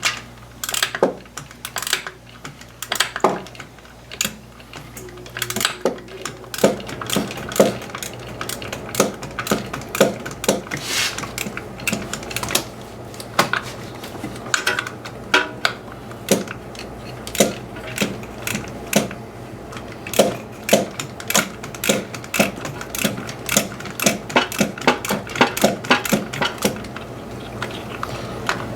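Hand socket ratchet clicking in short, quick strokes as a 10mm nut on the secondary air pump's check valve is worked loose in a cramped spot where the ratchet barely swings.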